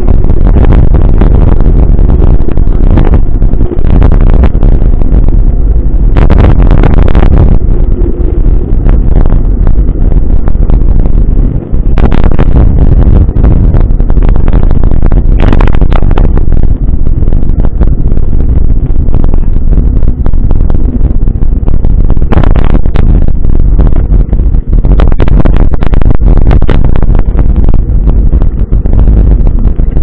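Mountain bike ride heard on an action camera's microphone: heavy, loud wind rumble with scattered knocks and rattles as the bike rolls over the road.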